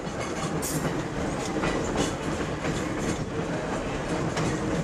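Red Arrow Lines trolley car 66 running along the track, heard from inside the car: a steady rumble with the wheels clacking over rail joints now and then.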